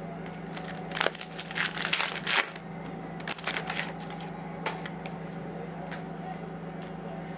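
Thick Panini Prizm hockey cards being flipped through by hand, sliding and snapping against each other in two short flurries with a few single clicks after, over a steady low hum.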